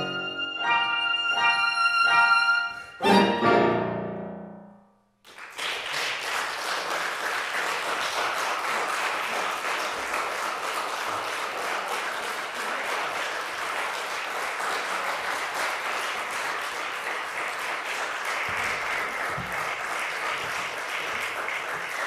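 Soprano saxophone and piano play the closing notes of a piece, and the final chord rings out and dies away about four to five seconds in. Then audience applause starts and keeps up steadily.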